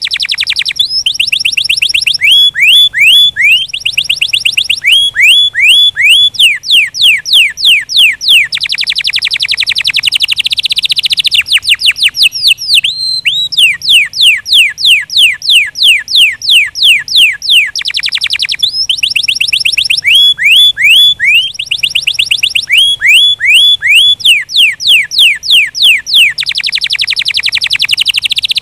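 A domestic canary singing loudly: long rolling trills of quick downward-sweeping notes, some phrases slower and spaced, others run together into a fast dense trill, with only brief breaks between phrases.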